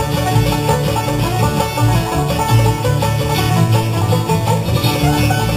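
Live bluegrass band playing an instrumental passage with no singing: banjo and acoustic guitar picking over a plucked upright bass.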